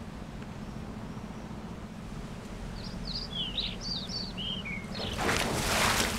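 Outdoor backyard ambience with a steady low hum, and a bird chirping a quick series of short calls in the middle. Near the end a rushing noise of splashing water builds and grows louder as feet run through shallow pool water.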